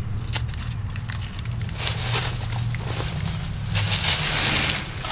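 Scissors snipping foam pipe insulation, giving short crisp clicks, with two louder rustling stretches about two and four seconds in. A steady low hum runs underneath.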